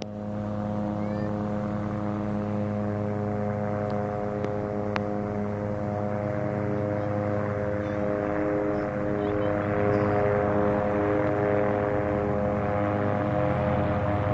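A steady mechanical drone like a running engine, holding one even pitch and growing a little louder and rougher about ten seconds in.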